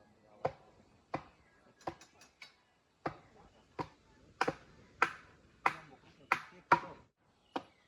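Repeated chopping strikes of a blade, about a dozen sharp blows spaced roughly half a second to a second apart, getting harder from about halfway through.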